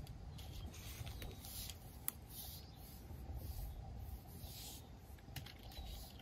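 Faint, scratchy rubbing or brushing strokes, about one a second, with a single sharp click about two seconds in, over a low steady rumble.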